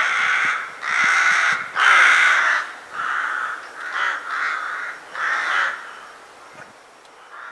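Rooks cawing: about seven loud caws in quick succession, then fainter calls dying away over the last second or two.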